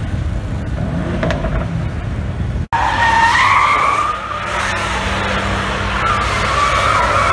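Car tyres squealing in a long wavering screech as a car spins donuts, with its engine running underneath. The screech starts abruptly about two and a half seconds in, after a stretch of low vehicle rumble.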